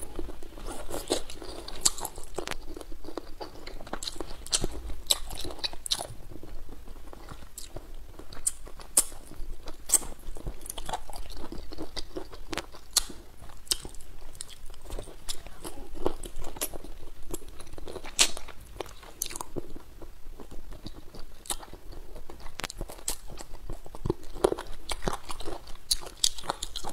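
A person chewing and biting braised pepper chicken feet close to the microphone, with a dense, irregular run of wet clicks and crunches.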